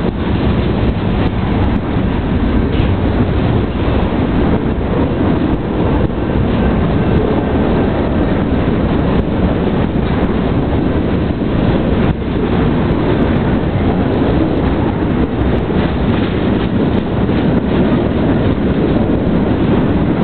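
Freight cars of a Union Pacific manifest train rolling past close by: a steady, loud rumble of steel wheels on the rails, with an occasional sharper clack.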